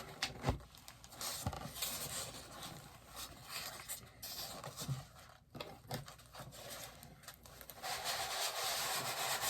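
Styrofoam packing insert rubbing and scraping against the cardboard box as it is worked out, with a few light knocks. The scraping grows louder near the end.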